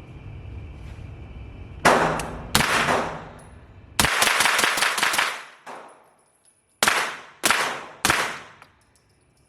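Suppressed rifle firing: two shots, then a rapid string of shots, then three more shots in quick succession.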